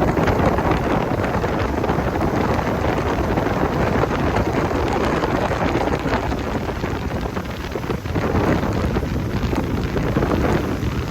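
Heavy wind buffeting the microphone: a loud, steady rumbling roar that cuts off abruptly at the end.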